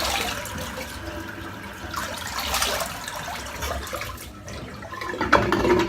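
Water running from a tap into a bathroom sink, with splashing, as is usual for rinsing at the end of a wet shave. Near the end there are a few louder clatters and splashes.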